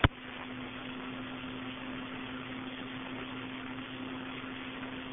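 A single click, then a telephone line's steady hiss with a low, steady hum, as the 911 call ends.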